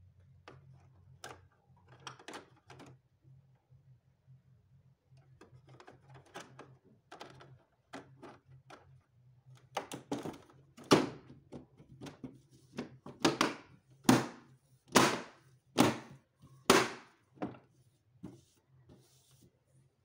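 Plastic front panel of a Vivax split air-conditioner indoor unit being handled and pressed shut: scattered soft clicks, then a run of about seven sharp plastic knocks roughly a second apart in the second half, over a faint low hum.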